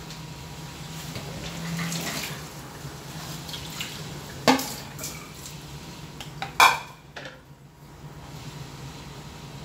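Dishes or pots clattering twice, sharply, about four and a half and six and a half seconds in, over some water noise and a steady low hum.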